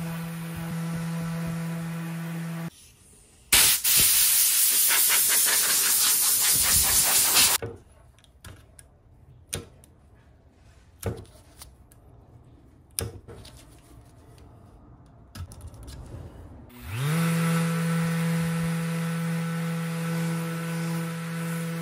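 Random orbital sander running on wood with a steady hum, switching off a few seconds in. A loud rushing hiss follows for about four seconds, then a lull with a few faint knocks. Near the end the sander spins up again with a rising whine and runs steadily.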